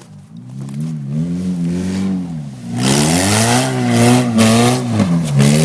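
Toyota Corolla's four-cylinder engine revving up and falling back several times as the car drifts. From about three seconds in, a loud hissing rush joins it and swells and fades in pulses.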